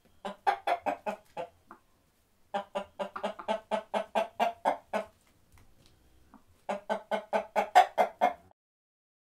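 Backyard hen clucking in three quick runs of about five clucks a second, with short pauses between them.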